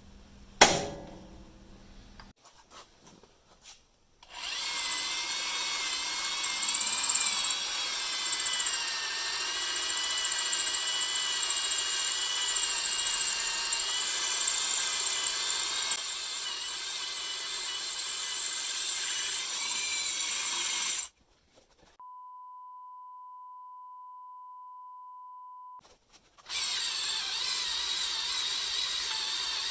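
A hammer strikes a center punch once, ringing, against a bolt sheared off flush in a steering knuckle. Then a power drill bores into the hardened broken bolt with a high, wavering metal-cutting squeal. The drilling breaks off at about 21 s for a steady pure beep tone of about four seconds, then resumes.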